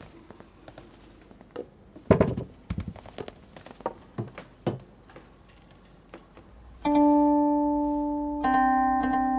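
Guqin (seven-string Chinese zither) being played: a few soft plucks and string noises, with one louder pluck about two seconds in. Then two long ringing notes start about seven and eight and a half seconds in, each fading slowly.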